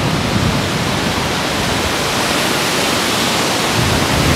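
Hurricane wind and rain making a loud, steady rush, with little gusting on the microphone.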